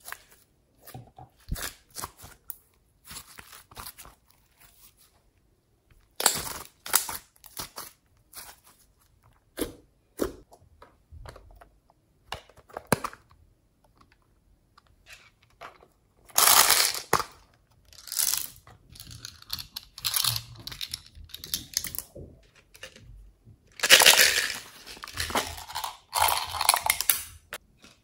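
Glossy slime being squeezed and worked by hand, giving irregular sticky clicks and small wet pops, with a few louder crackling stretches.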